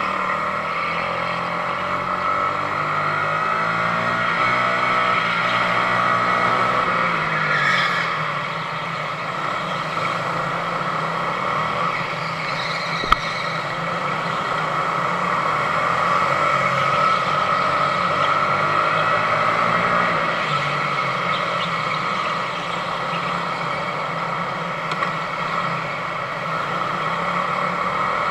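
Sodi RX250 rental go-kart's engine heard onboard at racing speed, its pitch rising and falling as the throttle is lifted and reopened through corners. A single sharp knock about 13 seconds in.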